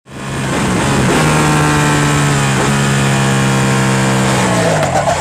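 Ducati 899 Panigale's V-twin engine running hard at high revs, heard onboard over wind rush. The note holds steady with brief breaks about one and two and a half seconds in, then the pitch falls away near the end as the throttle closes.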